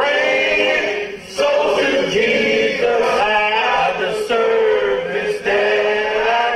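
A church congregation singing a gospel song together, led by a man's voice, in long held notes.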